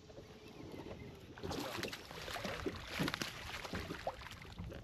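Splashing and rustling of wet grass as a hooked bass is hauled out of thick vegetation and landed, with short knocks among it. It is busiest from about one and a half to three and a half seconds in.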